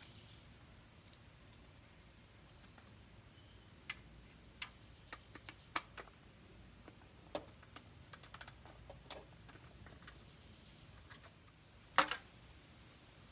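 Faint, scattered clicks and clinks of a 10 mm socket ratchet loosening the bolts that hold a motorcycle's passenger seat on. There is a quick run of ratchet clicks about eight seconds in and a louder clink near the end.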